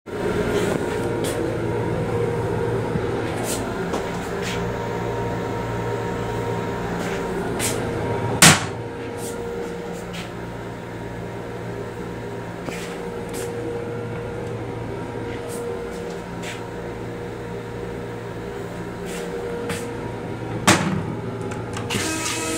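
Steady hum and rumble of a Long Island Rail Road M7 electric railcar, heard inside its small restroom, with light rattling clicks throughout. A sharp knock about eight and a half seconds in, as the toilet lid is lifted, and another knock near the end.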